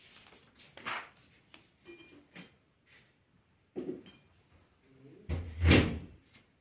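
A few light knocks and rustles, then one heavy, dull thump near the end.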